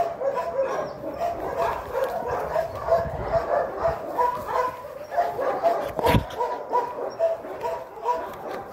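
A young dog yipping and whining over and over in short high notes, calling another dog to play. A single sharp knock sounds about six seconds in.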